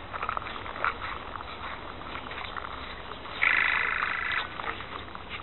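Quiet outdoor background with a few faint scuffs. About three and a half seconds in, a high buzzing trill lasts about a second.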